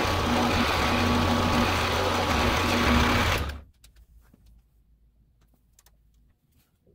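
Drilling machine spindle running a number 25 drill bit through a 3/8-inch indexing plate, drilling the tap hole for a 10-24 set screw. It runs steadily with a constant hum and whine, then stops abruptly about three and a half seconds in, leaving a few faint light clicks.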